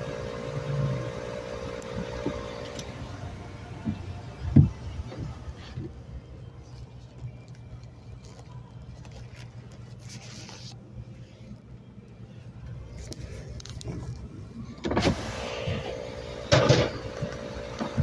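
Portable 12-volt air compressor running with a steady hum as it inflates a car tyre. The hum becomes much fainter for most of the middle and comes back clearly about fifteen seconds in, along with a couple of short loud noises and a knock a few seconds in.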